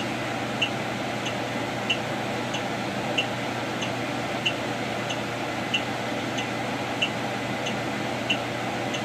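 Bus idling while stopped, a steady running hum and rush heard from inside the cab, with a short sharp tick repeating evenly about three times every two seconds.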